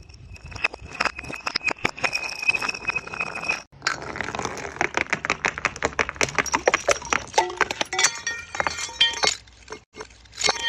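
Glass bottles smashing, with rapid runs of sharp clinking impacts and ringing glass. The sound breaks off abruptly twice, once about a third of the way in and again near the end.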